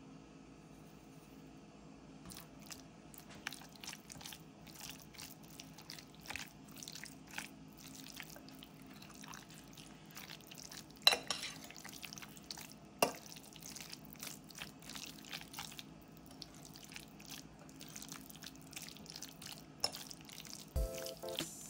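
Fork mixing a wet, creamy shredded-chicken filling in a bowl: soft squelching with many small clicks, and two sharper knocks of the fork against the bowl a little past the middle.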